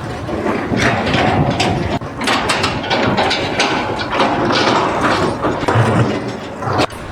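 Irregular mechanical clicking and clattering, a run of short knocks at uneven intervals.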